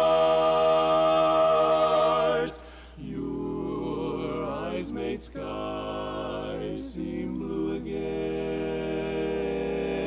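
Male barbershop quartet singing a cappella in four-part harmony: a loud held chord ends about two and a half seconds in, followed by a softer passage sung in short phrases.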